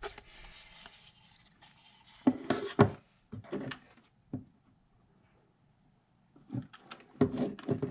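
A canvas on its wooden frame being handled on a tabletop: a soft rubbing scrape, then two sharp knocks a little over two seconds in and a few lighter taps and clicks as the frame is shifted and a corner is held down for hot glue.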